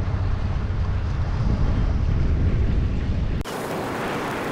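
Small harbour auto ferry underway: the low rumble of its engine mixed with wind buffeting the microphone. About three and a half seconds in, the low rumble cuts off abruptly, leaving a higher hiss of wind and water.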